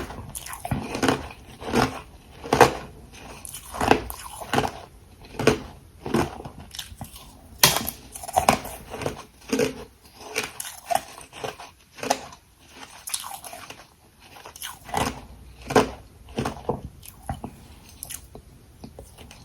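Close-miked crunching of frozen ice being bitten and chewed, irregular crunches about one to two a second, growing sparser near the end.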